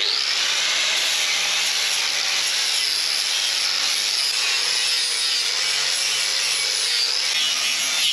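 A power tool sanding down the steel of a caravan chassis: a loud, steady abrasive hiss over an even motor tone, which sags briefly about seven seconds in.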